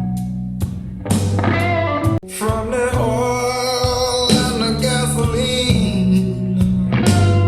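Blues-rock music with slide guitar, bass, a steady drum beat and a singing voice, played back through a bookshelf loudspeaker.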